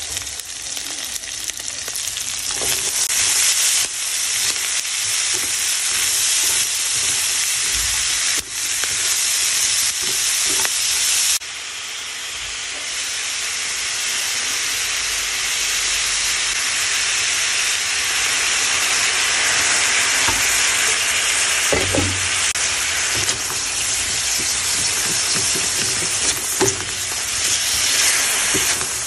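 Pork, onion and bell peppers sizzling loudly in a hot oiled wok, with a spatula stirring and scraping the pan now and then.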